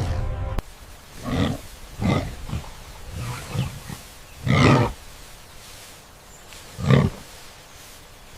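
A loud rumbling noise cuts off suddenly within the first second, followed by a large wild animal's short roaring calls, about six of them, the loudest about halfway through and another near the end.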